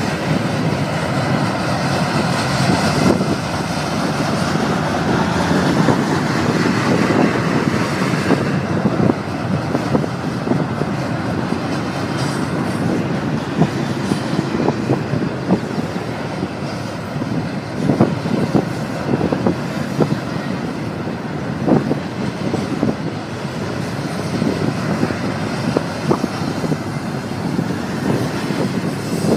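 Double-stack container well cars of a long freight train rolling past: the steady noise of steel wheels on rail, with a few sharp clacks now and then.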